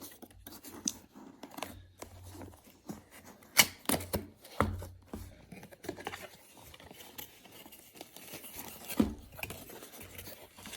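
An instant-camera box and its packaging being opened and handled: irregular scraping, tearing and rustling with scattered sharp clicks and knocks. The loudest knock comes about three and a half seconds in, another near nine seconds.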